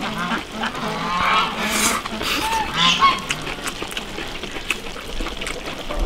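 Farm fowl calling repeatedly, loudest in the first half, over the clicks of chopsticks against a ceramic rice bowl and chewing.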